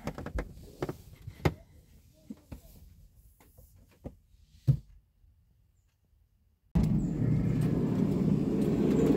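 Scattered knocks and clicks, as of things being handled, then near silence, then a loud, steady low rumbling noise that starts abruptly about two-thirds of the way in.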